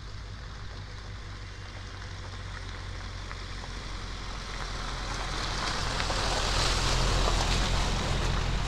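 Pickup truck driving down a wet gravel driveway and passing close by: a steady low engine hum, with the hiss and crunch of tyres on wet gravel swelling as it nears and goes by near the end.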